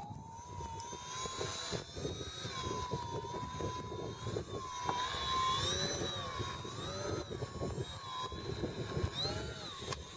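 Small foam aerobatic RC plane hovering nose-up, its motor and propeller whining, the pitch wavering up and down as the throttle is worked. There are quick dips and rises near the end.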